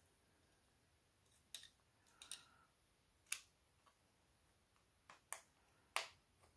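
About six light, sharp clicks and taps at irregular intervals, the loudest near the end, from small tools and smartphone parts being handled.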